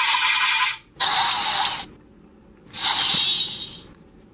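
Decadriver-style transformation belt sound effects: three hissing bursts of about a second each, two in quick succession and a third after a short pause, played for the "Invisible" card.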